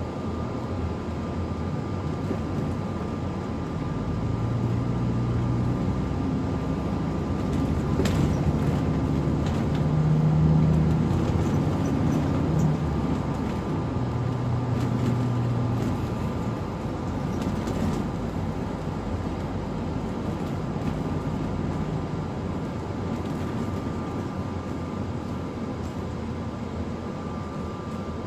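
Ford shuttle bus driving along at road speed, heard from inside the passenger cabin: steady engine and road noise with a thin constant whine. The engine note shifts and grows louder through the middle, then eases off.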